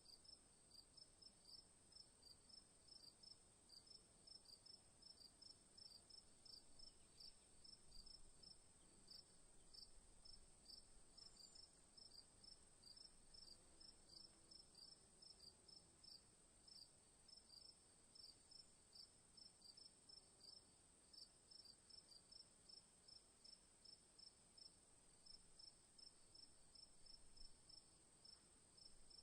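Crickets chirping in short, regular chirps, about three a second, over a steady high-pitched trill.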